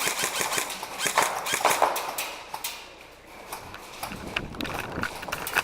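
Indoor airsoft game: rapid clicking shots from airsoft guns and scuffling running footsteps. The sound drops briefly about three seconds in.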